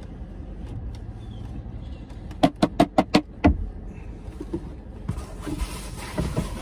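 A hard plastic eating tray being handled in a car cabin: a quick run of about six loud clacks within a second. A steady hiss sets in near the end.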